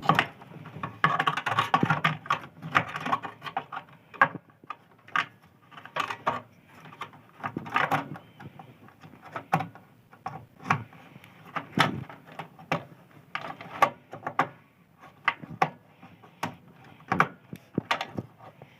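Irregular clicks, knocks and small clatters of hands working inside a desktop computer, swapping a RAM stick in and out of its motherboard slot.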